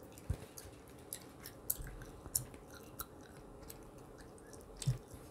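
Gum chewing close to a microphone: irregular sharp mouth clicks and smacks, about half a dozen louder ones.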